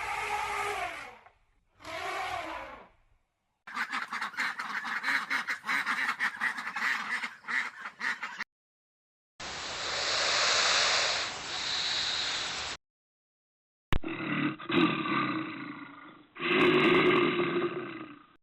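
A series of different animal calls, edited one after another with short silences between them. It starts with two short pitched calls, then a raspy call of about five seconds, then a noisier call of about three seconds, and ends with two more pitched calls.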